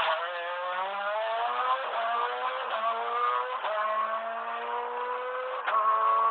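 Rally car engine accelerating hard as it passes close and pulls away, its pitch climbing and dropping back with several quick upshifts about a second apart. A sharp crack comes near the end.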